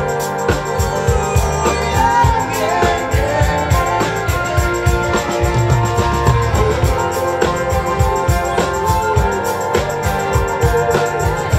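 Live band music: acoustic and electric guitars, a drum kit and congas playing a steady beat, with singing in places.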